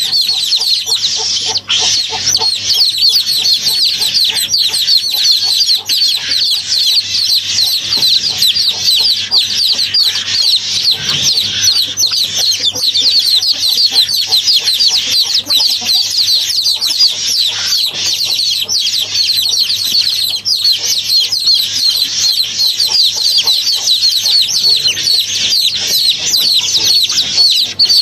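Many small birds chirping at once in a dense, continuous chorus of short high chirps.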